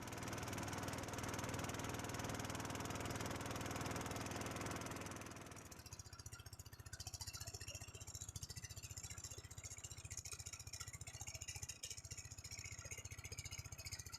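Small boat's engine running steadily with a fast even beat, easing down to a quieter, lower run about five or six seconds in.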